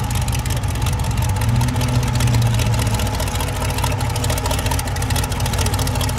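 Rat-rod hot rod's exposed engine running near idle through short open exhaust pipes as the car creeps by, a steady loud rumble that swells for a moment about two seconds in.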